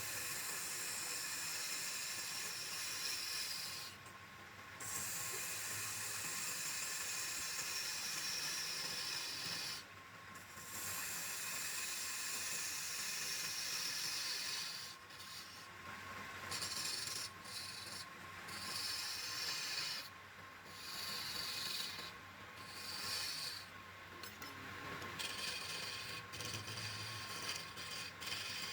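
Wood being sanded: a steady hissing rub in long stretches, broken by short pauses every few seconds.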